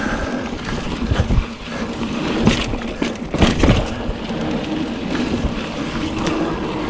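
Trek Fuel EX 5 full-suspension mountain bike riding fast over a dirt trail: a steady rush of tyre and wind noise, with several sharp knocks and rattles from the bike going over bumps.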